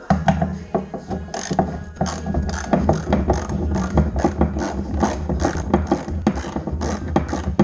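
Hand ratchet wrench clicking as it is swung back and forth to turn a bolt on a steel trailer side-board, a quick even run of about four or five clicks a second.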